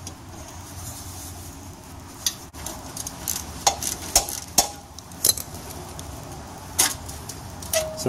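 Metal clinks and light rattles from a loose motorcycle exhaust clamp and its bolts being handled: several sharp separate clicks, roughly a second apart.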